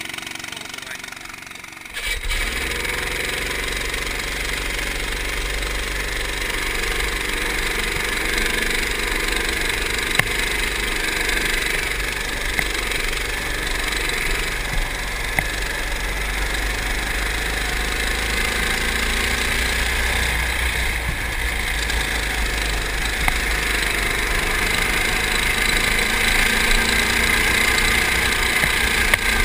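Go-kart engine running as the kart is driven around the track, heard from a camera mounted on the kart, with a steady low rumble beneath. The sound steps up suddenly about two seconds in, then stays loud and steady.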